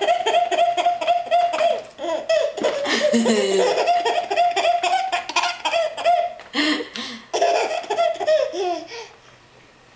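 A six-month-old baby laughing hard: long runs of rapid, high-pitched belly laughs, with a short break about seven seconds in, trailing off near the end.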